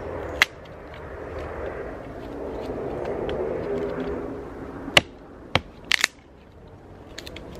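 Hatchet blows on a dead branch laid across a fallen log: sharp cracks of the blade striking wood, one about half a second in, then three or four in quick succession around five to six seconds in.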